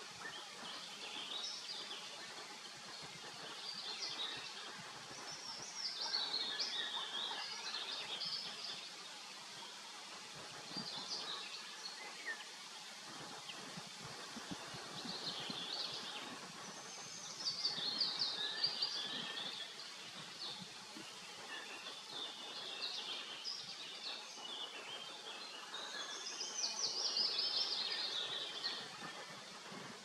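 Songbirds singing high, twittering phrases every few seconds, over the faint buzzing of honeybees flying at the hive entrance.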